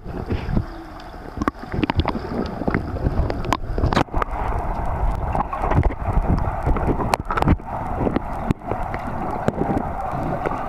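Swimming strokes and kicks heard underwater in a pool: muffled churning and rushing of water, broken by frequent short clicks, pops and bubbly thumps.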